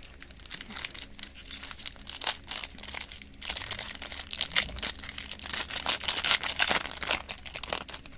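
A 1992 Studio baseball card pack being torn open by hand: a continuous irregular crackle of the crinkling wrapper, then the clear plastic inner wrap rustling as the cards are pulled out near the end.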